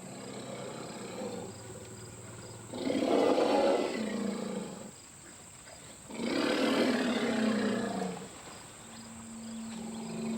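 Two loud animal roars, each about two seconds long and ending with a drop in pitch, the first about three seconds in and the second about six seconds in.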